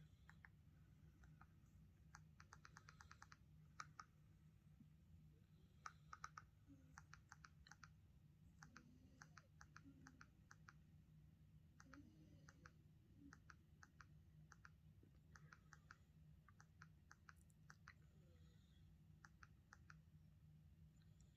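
Faint clicking of remote-control buttons pressed singly and in quick runs while navigating the TV's menus, over a low steady hum.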